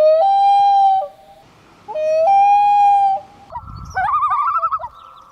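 Loon calling: two long wails, each rising quickly and then held on one steady note for about a second, followed from about three and a half seconds in by a rapid, wavering tremolo call.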